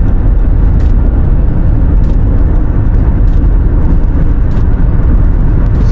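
A car driving: a steady, loud, low rumble of road and engine noise, with faint clicks about once a second.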